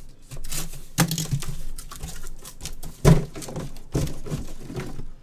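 Irregular clicks, taps and crinkling of things being handled on a table, with a sharp knock about three seconds in.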